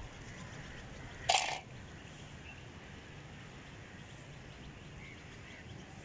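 A short, loud rush of pigeon wingbeats about a second in as domestic pigeons take off from a rooftop wall, over faint steady outdoor background noise with a few faint bird chirps later on.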